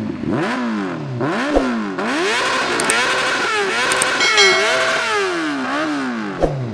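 Kawasaki H2R's supercharged engine revved over and over, the pitch climbing and dropping about ten times, with two short thumps among the revs.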